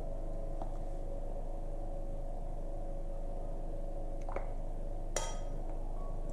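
A metal ladle clinks against a steel pot and bowl as soup is ladled out: three light clinks, the sharpest about five seconds in with a short ring. A steady hum runs underneath.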